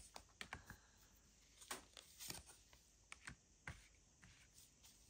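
Faint, irregular clicks and taps of a Lenormand card deck being handled, cards drawn and laid down one after another.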